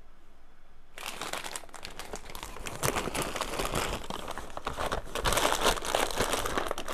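Brown paper bag rustling and crinkling as hands rummage inside it, starting about a second in and growing louder in the second half.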